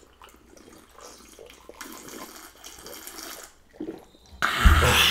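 Iced sparkling water being sipped and swallowed from glass mugs: soft liquid slurping and fizz, then a loud breathy rush of noise near the end.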